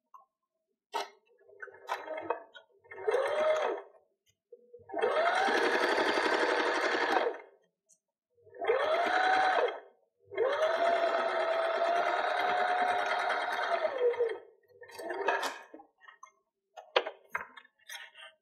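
Janome electric sewing machine stitching a curved seam through two layers of quilting cotton. It runs in four or five stop-start bursts, the longest about four seconds, the motor whine rising as it speeds up and falling as it slows at the end of each run. Light clicks and fabric handling come between runs and near the end.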